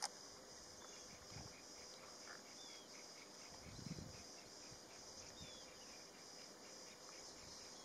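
Faint, steady high-pitched insect chirring with a regular pulse, with a few faint short bird chirps. A soft low thud about four seconds in.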